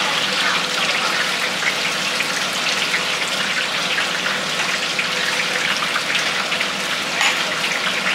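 Oyster fritters deep-frying in a large wok of hot oil: a steady crackling sizzle, with a brief click about seven seconds in.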